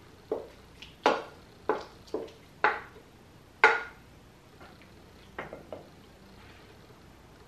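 A wooden spatula and glass mixing bowl knocking against each other and a ceramic baking dish as macaroni and cheese is scraped out. There are six sharp knocks in the first four seconds, then a few fainter ones about two seconds later.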